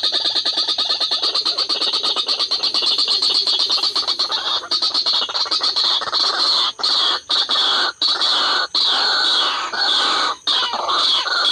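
White-breasted waterhens (ruak-ruak) calling loudly and harshly. A fast, even run of croaking notes merges into a dense, rough chorus, cut by a few brief gaps in the second half.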